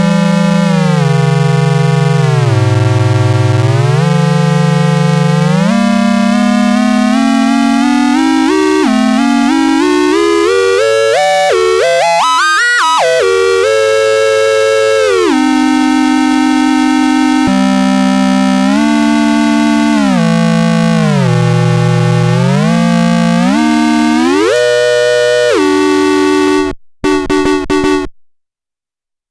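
Cosmoton Duet synthesizer holding one continuous buzzy tone rich in overtones that slides and steps in pitch. It dips low early, climbs slowly to a high squealing peak about halfway through, drops back down and wanders through further slides. It breaks off in a few stutters about two seconds before the end.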